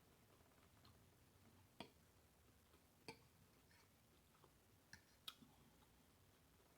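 Near silence broken by about five faint, sharp clicks of mouth smacking while eating, spaced a second or so apart.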